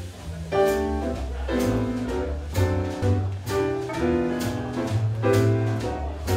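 Seven-piece swing jazz band playing live: trumpet, saxophone, piano, guitar, double bass and drums. It swings at a steady tempo, with a strong accented hit about once a second over a running bass line.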